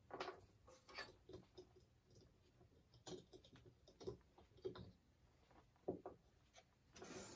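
Near silence broken by faint, scattered taps and clicks of small wooden pieces being handled and pressed into place while gluing, with a slightly louder rustle near the end.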